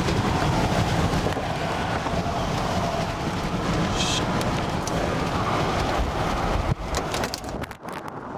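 Steady road and engine rumble inside a moving vehicle's cabin, which drops away sharply about two-thirds of the way through. A few sharp clicks and knocks follow as the driver climbs out of the car.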